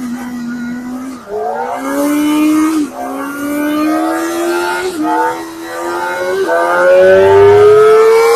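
Kawasaki ZX-25R's 249 cc inline-four engine revving hard as it is run up through the gears on a dyno. The high engine note climbs steadily, dipping briefly four times at the upshifts.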